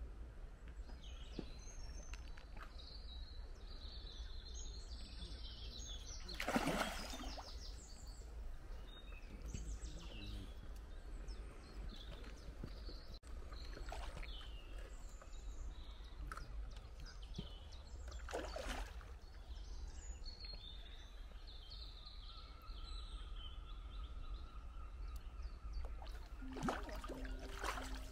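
A hooked mirror carp splashing at the surface while being played in close to the bank: a few short splashes, the loudest about a quarter of the way in, others past the middle and near the end, over a steady low wind rumble and birdsong. A phone ringtone starts near the end.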